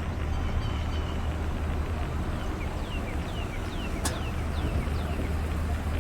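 Steady low engine rumble of idling vehicles over outdoor ambience. A run of short, high, falling chirps sounds midway, and there is one sharp click about four seconds in.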